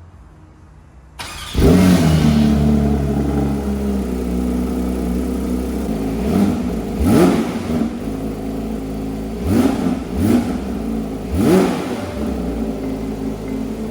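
Porsche 992 GT3 Touring's 4.0-litre naturally aspirated flat-six starting up about a second in and flaring, then settling to a fast idle. In the second half it gives about five short throttle blips, each revving up and dropping back.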